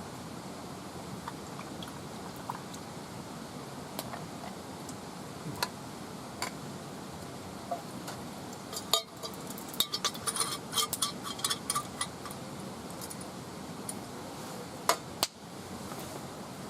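Wood fire crackling with scattered pops over a steady hiss, and a run of metallic clinks and rattles about ten seconds in, then two sharp clicks near the end.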